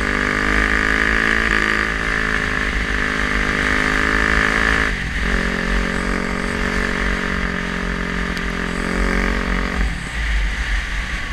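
Single-cylinder four-stroke engine of a 2016 Yamaha YZ450F dirt bike running under way at a steady speed. About five seconds in the note dips briefly and settles lower, as at a gear change. Near the end it breaks up into a rougher, uneven sound as the throttle closes. Wind rumbles on the microphone throughout.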